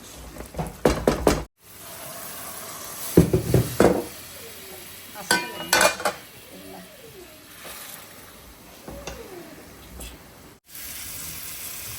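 Curry sizzling in a pot while a spoon stirs it and knocks against the pan, with several loud clanks in clusters during the first six seconds.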